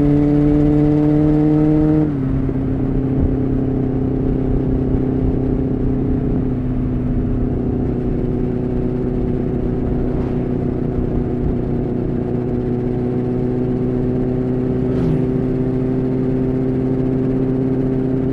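Honda CBR600F3's inline-four engine running under way, its note climbing a little before dropping sharply about two seconds in as it shifts up a gear. It then holds a steady, slowly rising note at cruising revs.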